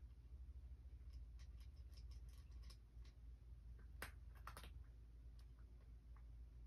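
A cat eating quietly from a food bowl: faint, scattered small clicks of chewing and the bowl, with a few sharper clicks about four seconds in, over a low steady hum.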